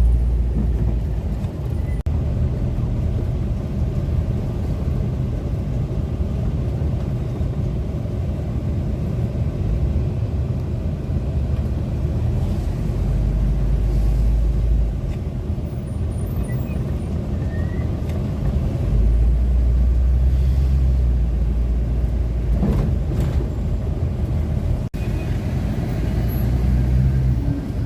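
Car driving along the road, heard from inside: a steady low rumble of engine and road noise that swells louder for a few seconds now and then.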